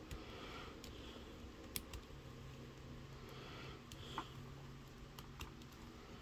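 Gray plastic McFarlane Ymgarl Genestealer action figure being posed by hand: a few light, scattered clicks of its plastic joints and limbs over faint handling noise.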